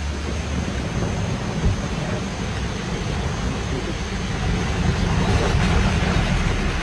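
Low, steady rumble of a vehicle running, with a single knock about two seconds in and the rumble growing a little louder in the second half.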